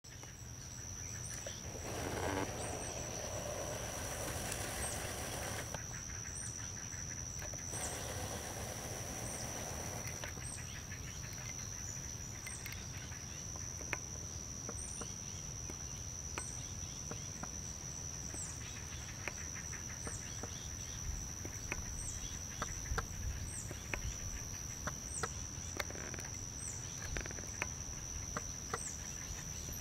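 Summer marsh ambience: a steady high-pitched insect drone with short, very high chirps repeating about once a second. Two bursts of rushing noise come in the first ten seconds, and scattered small clicks from handling the handheld camera come later.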